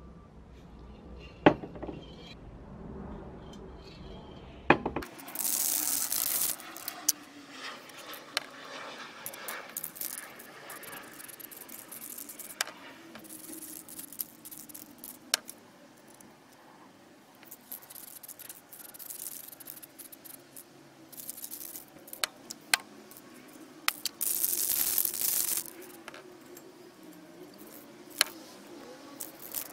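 Aerosol primer spray can hissing in two bursts of about a second and a half each, one about five seconds in and one near twenty-four seconds. Scattered light metallic clicks and rattles come between the bursts.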